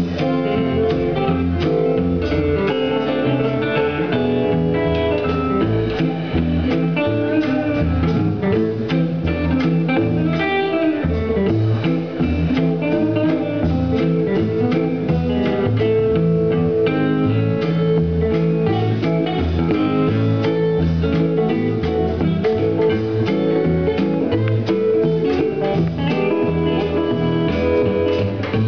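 A live band playing an instrumental stretch: hollow-body electric guitars picking over a drum kit keeping a steady beat.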